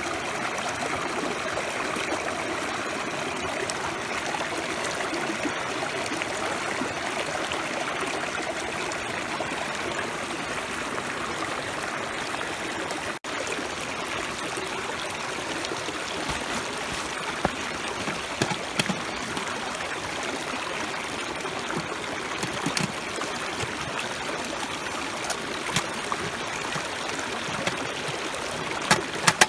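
Food sizzling steadily on a thick iron griddle over a campfire, with occasional sharp pops in the second half.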